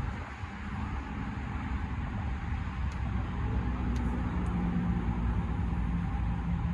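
Tesla Model X falcon-wing doors powering down: a steady motor hum that grows stronger about halfway through, with a few faint ticks, over a low rumble.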